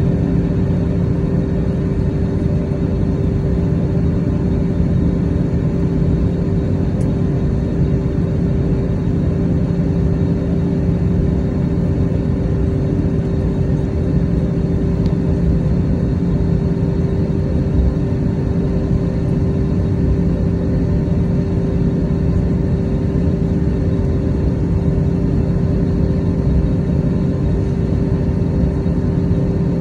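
Cabin noise inside an Airbus A321neo while taxiing: the engines running at low taxi power under a steady rumble, with a constant low hum and no takeoff roar.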